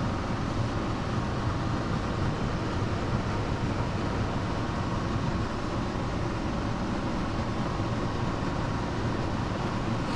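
Steady low hum of a running fan, with a faint thin whine above it.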